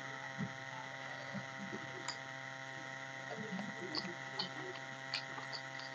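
Fingers mixing and mashing boiled rice with mung dal bhorta on a steel plate: soft squishing with a few sharp clicks, over a steady electrical hum.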